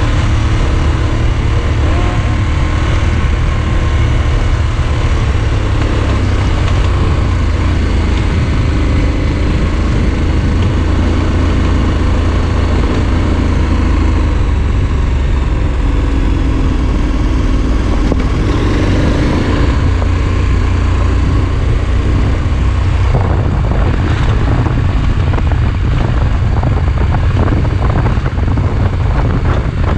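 Adventure motorcycle running steadily under way on a dirt and gravel road, with a heavy low rumble throughout. The engine note rises briefly about two-thirds of the way through, and from about three-quarters of the way through a quick run of clicks and knocks from the rough surface comes in over it.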